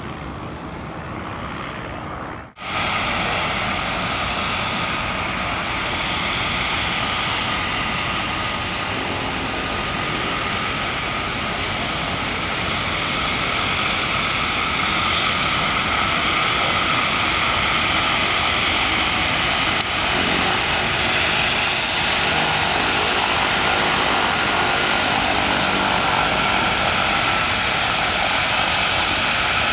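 De Havilland Canada DHC-6 Twin Otter's two Pratt & Whitney PT6A turboprop engines running with a steady high turbine whine over propeller noise as the floatplane taxis on the water. The sound cuts out abruptly for a moment about two and a half seconds in, then comes back louder and grows slowly louder toward the end.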